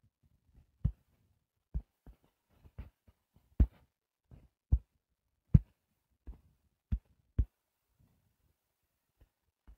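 About a dozen dull taps on a touchscreen, heard through the device body as short, low thumps at irregular intervals, growing sparse near the end: a finger or stylus dabbing speckles onto a drawing.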